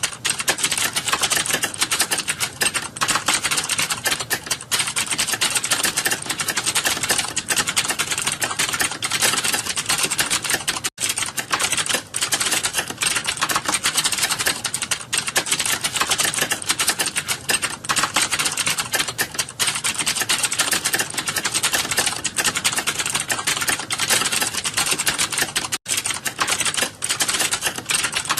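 Fast, continuous typing on a computer keyboard: a dense, unbroken stream of key clicks, broken only by two split-second gaps.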